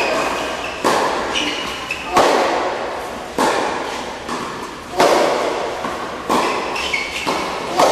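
Tennis balls struck by rackets in a baseline rally: six sharp hits, about one every second and a half, each ringing out in a large indoor hall, with softer ball bounces between.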